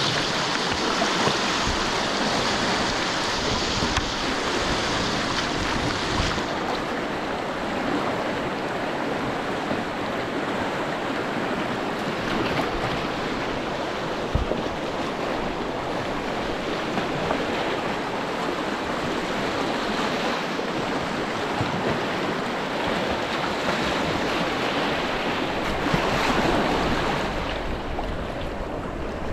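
Rushing white water of a river rapid close around a kayak, with paddle strokes splashing. The hiss is brightest for the first six seconds or so, then eases to a softer rushing.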